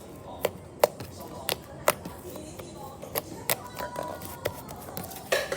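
Slime being pressed and poked by hand, giving sharp, irregular clicks and pops, about one or two a second, with faint background music.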